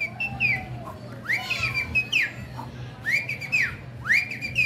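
Clear whistled notes in short repeated phrases, each one sweeping up, holding briefly and dropping away, about once a second.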